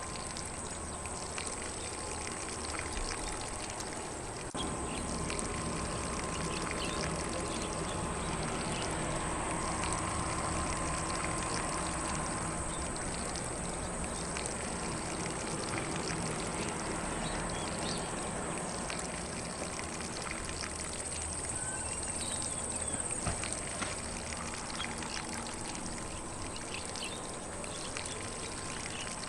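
Lawn sprinkler spraying water over grass, a steady hiss of spray that gets slightly louder about four seconds in.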